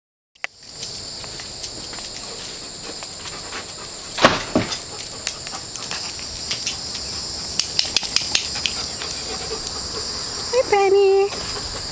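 Steady, high-pitched chorus of insects, with a sharp knock about four seconds in, a few light clicks around eight seconds, and a person's brief call near the end.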